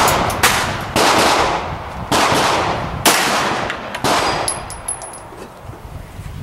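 Semi-automatic pistol fired six times, the first three in quick succession and then about one shot a second, each crack followed by a reverberating tail. A few faint high metallic tinks follow near the end.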